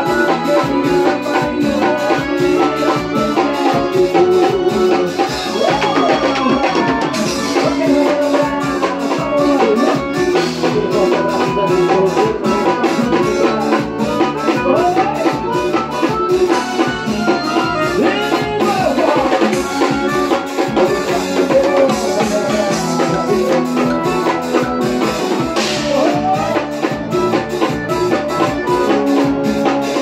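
Live forró band playing: accordion melody over bass guitar and a fast, steady drum beat, loud and continuous.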